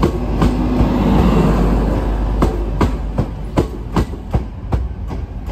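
Class 185 diesel multiple unit running into the platform, a low rumble with its wheels clicking over rail joints and points, two to three clicks a second in the second half.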